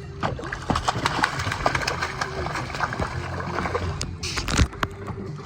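Water splashing and knocking against a small boat as a fish is hauled in, with a louder splash a little past four seconds in, over a low steady hum.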